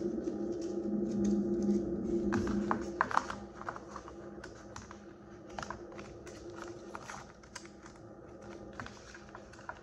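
Irregular light clicks and taps of hands handling the paper and cardboard packaging pieces of an AirPods box, thickest about three seconds in. A steady low hum fades out about three seconds in.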